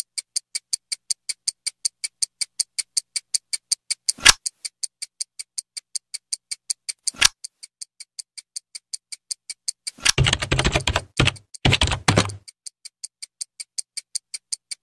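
Stopwatch ticking sound effect, about four ticks a second. Two whooshes cut across it, near 4 s and 7 s, and about ten seconds in come two short bursts of rapid clatter like keyboard typing.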